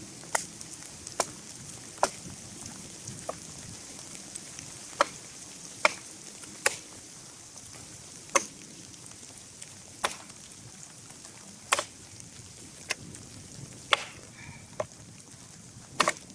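A blade chopping into wood in short, sharp strikes, irregularly spaced about a second apart, over a steady hiss.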